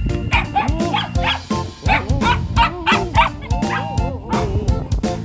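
Shetland sheepdogs barking excitedly in play, a quick run of short high yaps about two or three a second. Background music with a steady beat plays under the barking.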